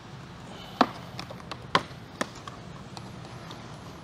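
Sharp plastic clicks and taps as a small screwdriver pries a stubborn grille clip into a plastic bumper cover, three or four clicks in the first half, the loudest about a second in.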